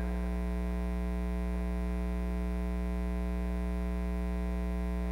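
Steady electrical mains hum with a stack of higher overtones, level and unchanging throughout.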